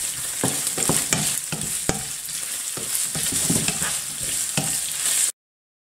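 Minced meat and chopped onion sizzling in a frying pan while a wooden spatula stirs and scrapes through them, with irregular knocks of the spatula against the pan. The sound cuts off suddenly about five seconds in.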